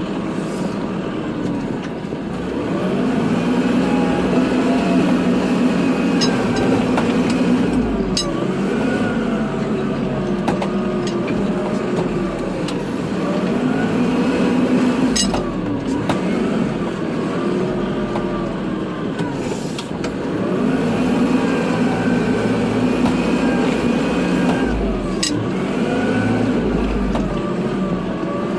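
Kubota tractor's diesel engine working, its pitch rising and falling in cycles every five or six seconds as it pushes snow and backs up. Three sharp knocks come at intervals.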